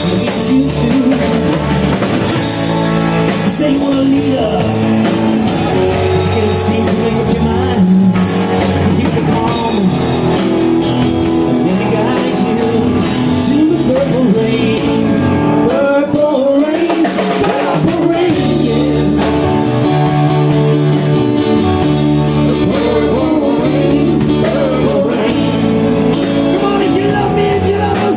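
Live band playing rock music: drum kit, bass and a pitched melody line over them, played loud and steady. About halfway through the bass and drums stop briefly before the band comes back in.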